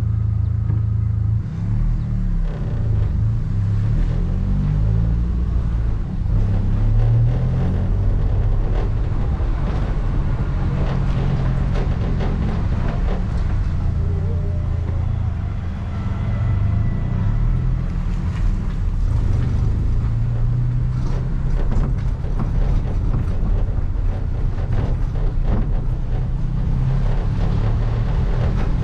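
A motor vehicle's engine running, its pitch rising and falling, over a steady low rumble and road noise.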